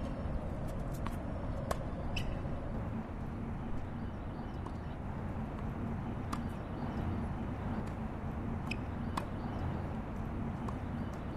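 Outdoor ambience: a steady low rumble with scattered sharp ticks and a few short high chirps.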